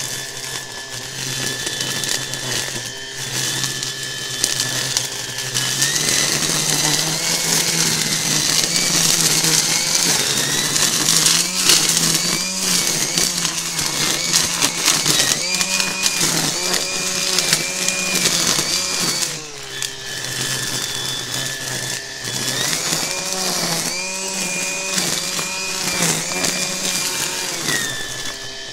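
Makita DUR187LZ 18V cordless brushless line trimmer running, its two-line nylon head whipping through stinging nettles and weeds. The motor whine steps up in pitch about six seconds in and then wavers up and down repeatedly, the automatic speed mode speeding the head up as it gets into the growth, before settling back to the lower speed near the end.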